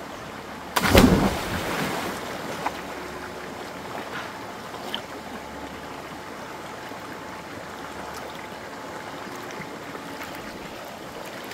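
Steady rush of a small mountain waterfall and stream, with one brief, loud, sudden noise about a second in.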